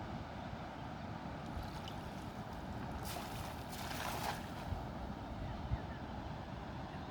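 Steady outdoor wind and water noise, with a brief rushing splash of water about three seconds in and a couple of faint low knocks after it.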